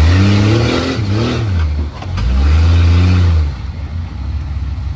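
Off-road vehicle's engine revving in two surges, the pitch climbing and falling back each time before dropping to idle.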